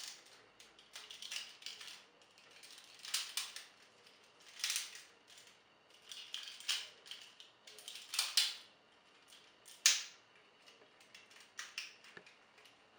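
Hard plastic toy figure being handled: a string of sharp clicks and clatters as its joints and parts are moved, with the loudest clicks a little after halfway.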